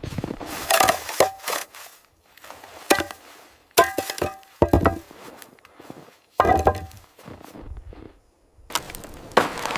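Irregular clusters of sharp chopping blows on wood, several leaving a brief ringing tone, with a short pause before a last group near the end.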